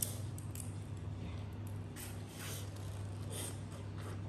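Close-up sounds of eating crab by hand: a few short crackles of shell being broken and wet sucking as meat is drawn from the shell. A steady low hum runs underneath.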